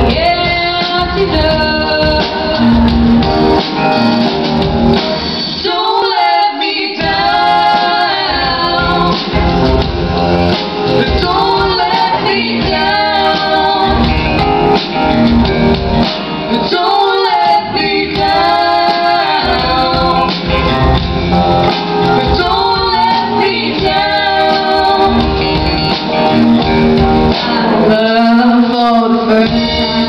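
A song performed live, a woman's voice singing lead over a band.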